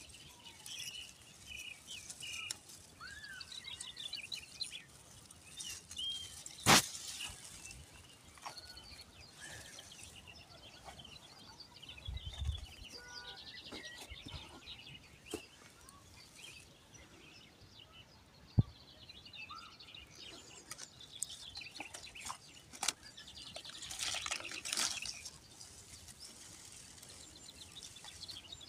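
Small birds chirping and calling, with the rustle of weeds being pulled up by hand. Two sharp clicks stand out as the loudest sounds, about a quarter and two-thirds of the way through.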